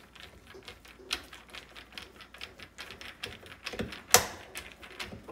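Hand screwdriver turning a screw into a dishwasher's metal mounting bracket: a string of irregular quick clicks, several a second, with a louder click about four seconds in.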